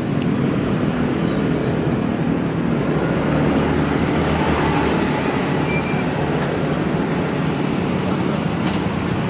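Steady road traffic: vehicles running past, a continuous low rumble with a hiss over it.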